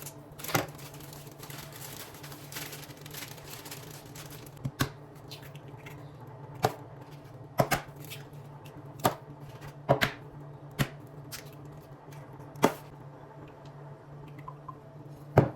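Kitchen handling sounds: about a dozen sharp, irregularly spaced clicks and knocks of utensils and containers being set down and moved while preparing cookie batter, over a steady low hum.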